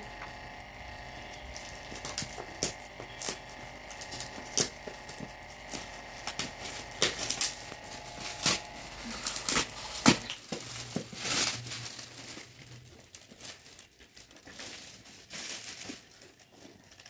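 Gift packaging crinkling and rustling as a present is unwrapped by hand: irregular sharp crackles in quick succession, busiest through the first ten seconds or so and sparser near the end.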